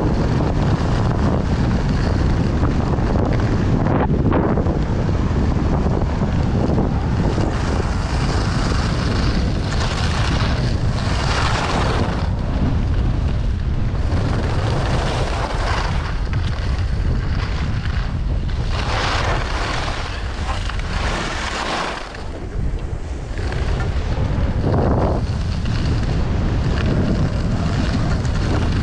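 Wind rushing over the microphone of a downhill skier, with the skis hissing and scraping over packed snow in swells every few seconds as the skier turns.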